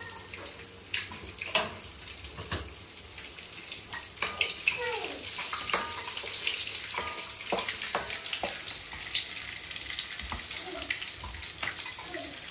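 Food frying in hot oil in a pan, a steady sizzle, with scattered clinks and knocks of a utensil against the pan.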